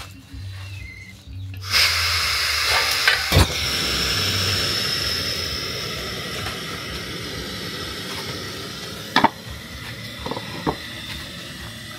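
A hot cooking pot hissing with steam. The hiss starts suddenly about two seconds in with a thin high whistle in it, then slowly fades, and a few sharp knocks of pot or utensil come near 3.5, 9 and 11 seconds.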